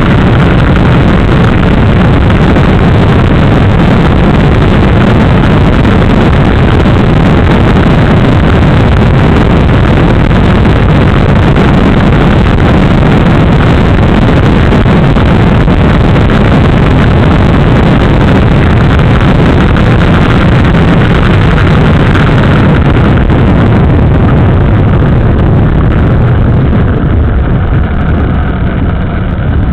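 Motorcycle engine running under way, with road and wind noise, heard from right beside the engine block: loud and harsh-sounding. It eases off shortly before the end as the bike slows.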